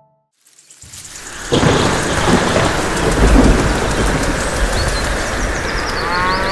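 Thunderstorm: heavy rain falling with rumbling thunder. It fades in about half a second in and turns loud about a second and a half in. A short pitched call comes in near the end.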